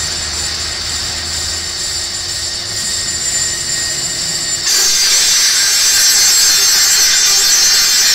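Industrial length-cutting saw machine running with a steady hum and whine. About four and a half seconds in, the saw blade starts cutting and a louder, high-pitched cutting noise takes over.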